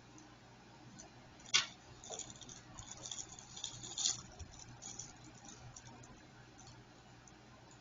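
Small clicks and light rustling from a multimeter and its test leads being handled, with one sharp click about one and a half seconds in, over a faint steady low hum.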